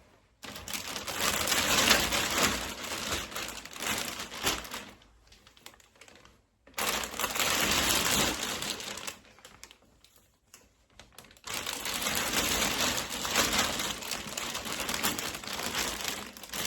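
Plastic vacuum storage bag rustling and crinkling as folded towels are pushed into it, in three long bouts with short pauses between.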